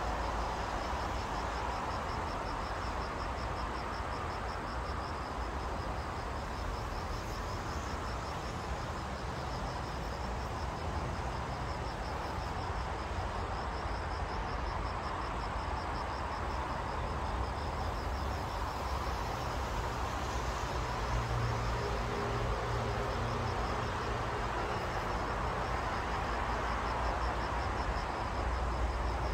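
Outdoor evening ambience: a steady low rumble and hiss, with an insect trilling in quick, even pulses throughout. A faint low droning hum rises about two-thirds of the way through.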